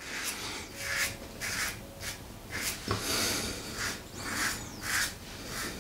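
Alpha Outlaw Evolution stainless-steel double-edge safety razor scraping through lathered stubble in a run of short strokes, about two to three a second, with a small knock about three seconds in.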